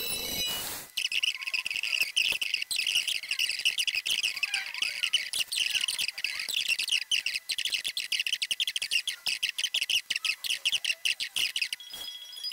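Dense, rapid high-pitched chirping of a group of small birds. It starts abruptly about a second in, after a brief rush of noise, and cuts off just before the end.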